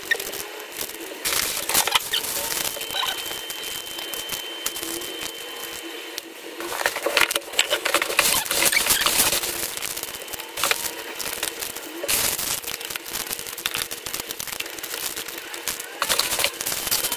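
Small plastic bags of star-shaped beads crinkling and rustling as they are handled and packed into a plastic drawer, with light clicks of the beads and bags against the plastic. The handling comes in irregular bursts, busiest about halfway through.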